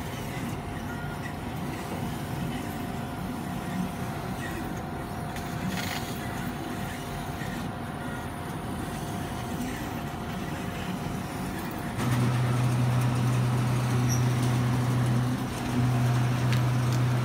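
Laser cutting machine running with a steady mechanical hum. About twelve seconds in, a louder low hum sets in, breaks off briefly, and starts again.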